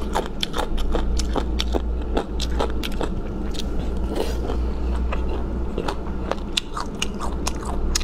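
Close-miked chewing and biting of cold boneless chicken feet, with many small sharp, wet clicks and crunches several times a second over a steady low hum.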